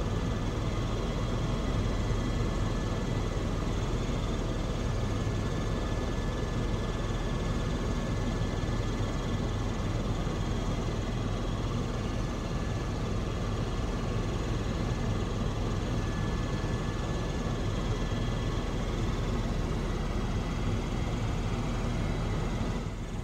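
Helicopter cabin noise in flight: a steady engine and rotor drone with a few thin, high whining tones over it. The level drops a little just before the end.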